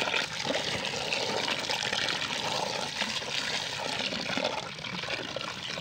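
A stream of water pouring into an aluminium basin full of lemons, splashing steadily as a hand stirs and rubs the fruit to rinse them.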